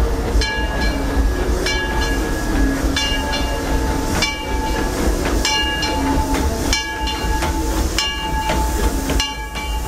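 Narrow-gauge steam locomotive of the Disneyland Railroad approaching and passing close by with its train. The locomotive bell rings with a sharp strike about once a second over the rumble and hiss of the engine and cars.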